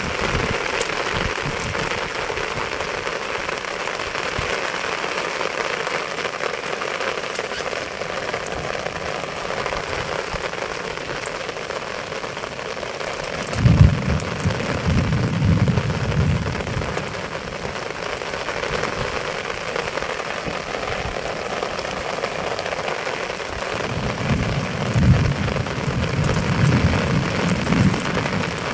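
Steady rain falling, an even hiss with no breaks. A low thud about halfway through, and low rumbling near the end.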